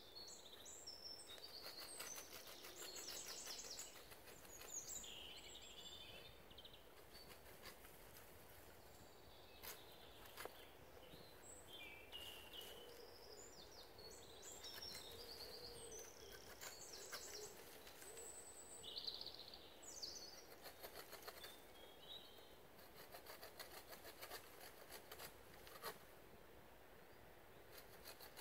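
Faint woodland birdsong: several birds sing short, varied chirping phrases throughout, over a quiet outdoor background, with a few faint clicks.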